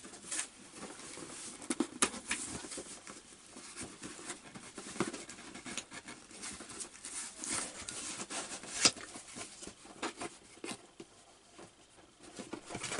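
Hands handling and opening a small cardboard box: rustling and scratching of cardboard and its ribbon, with scattered small taps and clicks and one sharper tap about nine seconds in.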